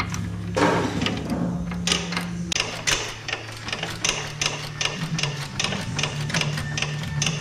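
Hand ratchet wrench clicking in quick runs of strokes, several clicks a second, as a bolt on the ATV's steering assembly is worked.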